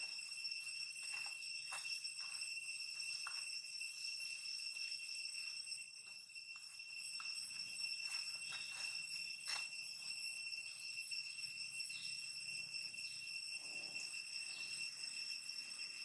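A steady high-pitched insect drone runs throughout, with a few faint, scattered short clicks.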